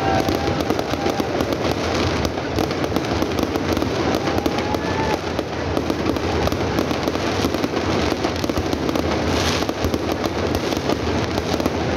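Fireworks crackling and popping in a dense, continuous string, with no let-up.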